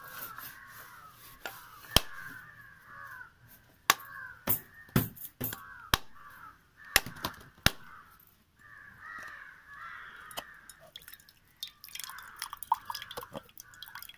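A knife blade knocking against a coconut shell to crack it: about eight sharp knocks, mostly in the first eight seconds, the loudest about two seconds in. Crows caw again and again behind the knocks.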